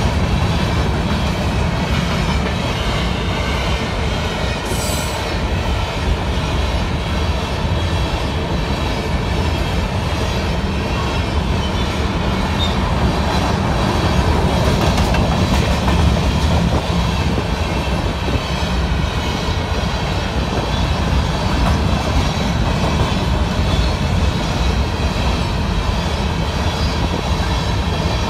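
Train rolling past: a steady, loud rumble of its cars and wheels on the rails.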